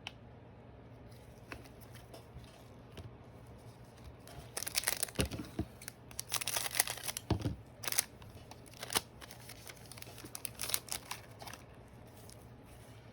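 Trading cards and their plastic-foil packaging being handled: a run of crinkling, rustling scrapes from about four seconds in until near the end, with quiet before and after.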